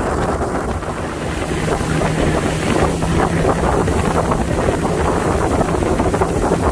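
Wind buffeting the microphone, a loud, rough rumble, with a steady low hum joining about a second and a half in.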